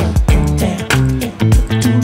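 Live looped instrumental groove: a programmed beat of deep kick drums and sharp snare-like hits over a steady bass line, played from a drum-pad controller and loop station.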